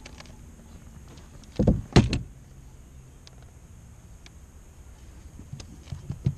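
Two heavy thumps against the fishing boat, a moment apart, as a fish is brought aboard in a landing net, followed near the end by a few light knocks.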